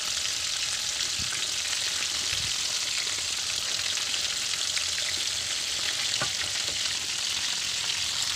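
Breaded chicken pieces frying in hot oil in a metal wok: a steady crackling sizzle, with a few soft knocks as a utensil moves the pieces.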